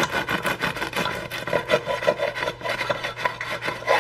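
A knife sawing back and forth through a crusty loaf, the blade running in the slot of a bamboo bread slicer guide: a continuous rasping of quick, closely spaced strokes.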